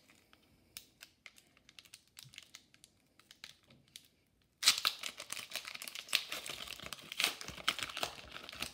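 Foil wrapper of a hockey card pack crinkling as it is handled and torn open: a few faint rustles at first, then from about halfway in loud, continuous crinkling.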